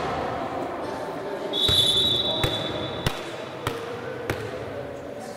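A referee's whistle blown once, a steady high blast of about a second and a half starting about one and a half seconds in. A volleyball smacks and bounces on the hall floor, about one impact every 0.6 seconds through the second half.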